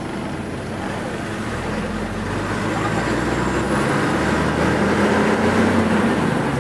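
Engine and road noise of a moving bus, heard from inside the cabin, a steady hum that grows louder about two seconds in.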